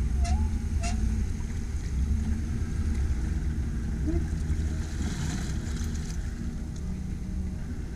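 A boat motor running steadily with a low rumble. A few short chirps sound in the first second.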